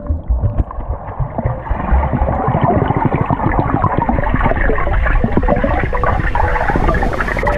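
Water rushing and bubbling, recorded by a camera held underwater while a swimmer strokes and breathes out streams of bubbles, so the sound is muffled, with a dense crackle of bubbles.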